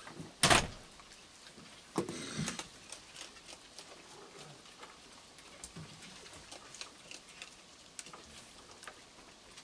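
Raccoons eating dry food on a wooden deck, with faint scattered clicks and crunches. A sharp knock comes about half a second in, and a second knock about two seconds in is followed by a brief rattling scrape.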